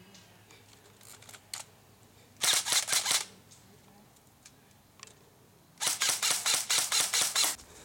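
Airsoft electric rifle firing on full auto: two bursts of rapid clacking shots, a short one a few seconds in and a longer one of about two seconds near the end, with a few faint single clicks before the first.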